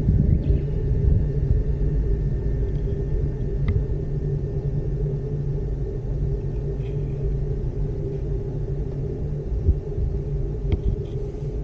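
Steady low rumble and hum inside a ropeway gondola cabin as it rides along the cable, with a couple of faint ticks.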